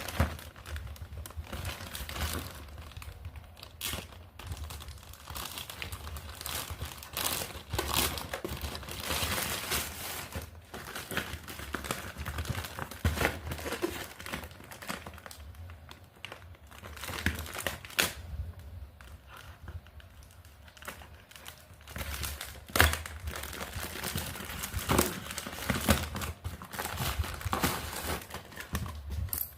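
Parcel packaging being unwrapped by hand: plastic wrap crinkling and tearing in irregular rustles with sharp crackles.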